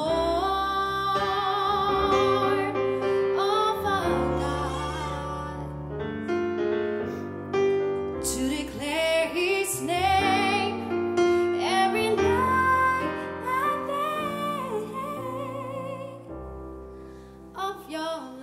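A woman's solo voice singing a slow gospel melody with vibrato, phrase by phrase, over chords played on a Nord Stage keyboard's piano sound.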